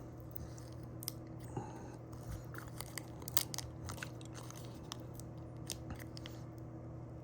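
Irregular small crackles and clicks of a wrapper being peeled off a 1998 Bazooka gum piece by hand, over a faint steady hum.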